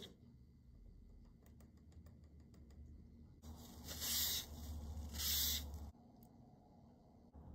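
Two loud rushes of scratchy noise, each about a second long, starting about three and a half seconds in: something rubbing close to the microphone. Before them come faint small clicks of tweezers on a watch movement.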